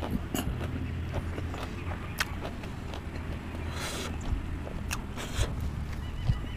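Close-up chewing and mouth sounds of a person eating by hand: irregular wet clicks and smacks with a couple of short crackles, over a steady low rumble.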